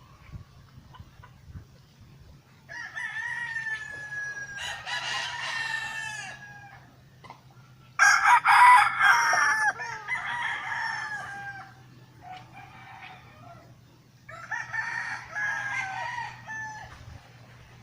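Roosters crowing: several long crows one after another, some overlapping, the loudest about eight seconds in, over a steady low hum.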